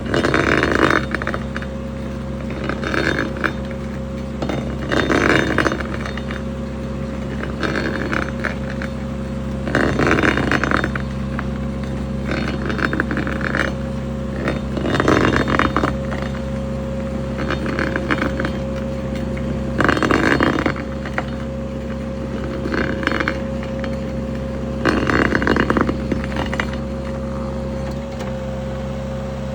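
Stump grinder cutting into a stump. The grinding comes in loud bursts about every five seconds, with weaker bursts between them, in a rising and falling rhythm that sounds a bit like snoring. Under it runs the machine's steady engine hum and a steady whine.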